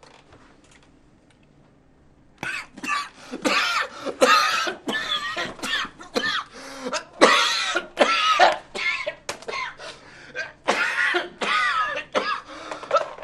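A man coughing over and over in a long coughing fit, starting about two seconds in, with harsh hacking coughs following one another for the rest of the time.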